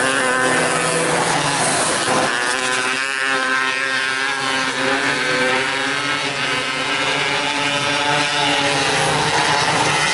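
Several 270cc micro sprint cars racing on a dirt oval, their engines running hard at high revs, the pitch rising and falling as the cars go through the turns and down the straights.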